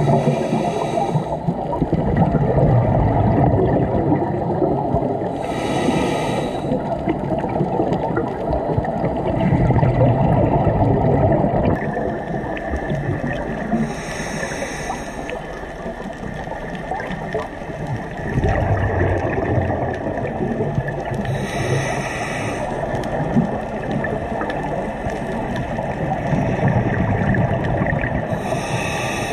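Scuba regulator breathing underwater: a short hiss of inhalation five times, about every seven or eight seconds, with long bubbling rumbles of exhaled air between.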